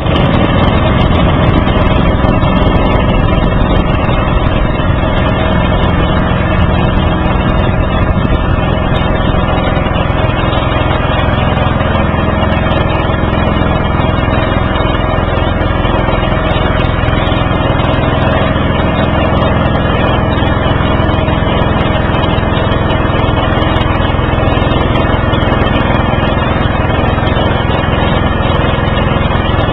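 Small motor of a bamboo river raft running steadily at an even speed throughout, close and loud.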